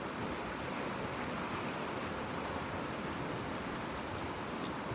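River water rushing steadily: an even, unbroken wash of flowing water.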